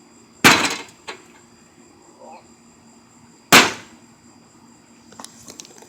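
A heavy tool smashing into a microwave oven: two loud blows about three seconds apart, each a sharp crash with a short ringing tail, and a lighter knock just after the first.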